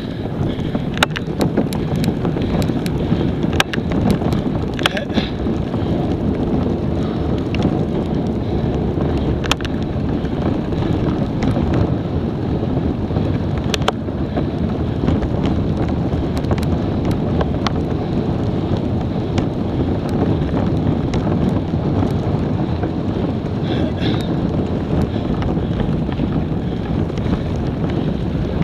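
Wind buffeting an action camera's microphone: a steady, loud, low rushing noise while the camera moves along, with a few sharp clicks scattered through the first half.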